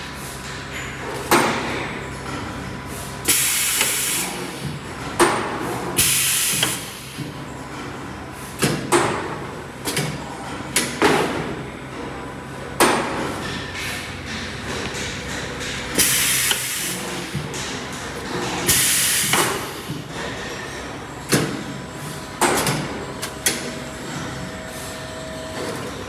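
Paper baking-cup forming machine running: the forming press and die give sharp clacks every one to three seconds, with several short bursts of hiss lasting about a second, over a steady machine hum.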